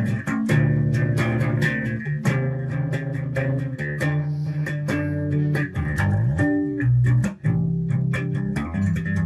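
Electric bass guitar played solo in a funk slap style: sharp thumb slaps and popped strings over low notes, with a few sliding notes about six to seven seconds in.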